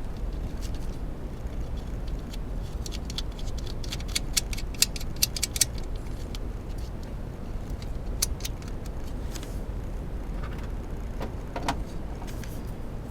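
Small metallic clicks and clinks of a bolt and nut being handled and started on a replacement ignition coil's mounting, in irregular clusters with a brief ring near the end, over a steady low hum.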